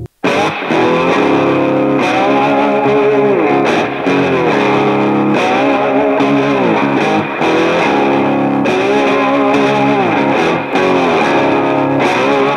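Background music led by distorted electric guitar, starting right after a momentary break.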